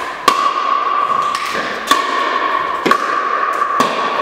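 Pickleball rally: the hard plastic ball struck by paddles and bouncing on the floor, four sharp pops roughly a second apart, each with a short echo.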